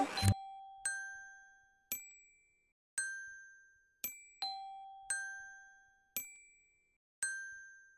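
Soundtrack music stops just after the start, then single bell-like chime notes sound about once a second, each struck sharply and ringing out to fade, at a few different pitches.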